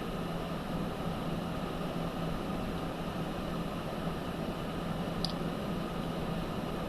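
Steady background hum and hiss of a workshop, with one faint click about five seconds in.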